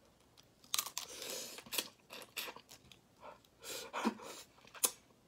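Close-miked eating of spicy crayfish: shells crunching and tearing as they are pulled apart by hand, with chewing, in a handful of short bursts.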